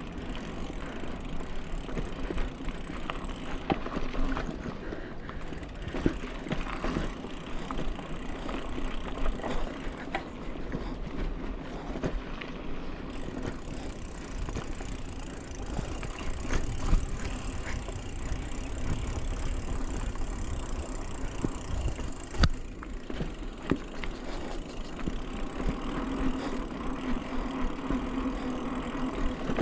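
Mountain bike rolling along a bumpy dirt singletrack: a continuous low rumble from the tyres on the ground, with frequent sharp clicks and rattles from the bike jolting over bumps.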